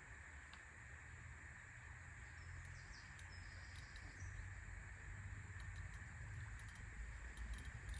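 Faint riverbank ambience: a low, uneven rumble under a steady hiss, with a few faint bird chirps about three to four seconds in.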